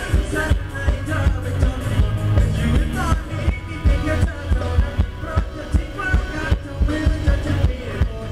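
Live Thai ramwong dance music from a band on stage, played loud through PA speakers: a singer's voice over a steady, fast drum and bass beat.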